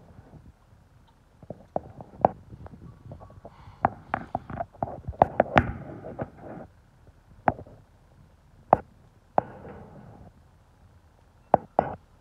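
Brick masonry crashing down as an excavator's grab pulls apart a building wall: a run of sharp cracks and thuds, densest about four to six seconds in, then a few single knocks of falling debris.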